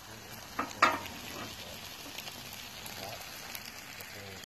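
Hash browns, bacon and sausage sizzling steadily on a hot steel plow disc (discada) over a propane burner. Two short sharp clicks come a little under a second in.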